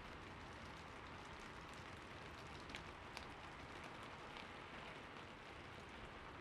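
Light rain falling steadily: a soft, even hiss with scattered individual drops ticking.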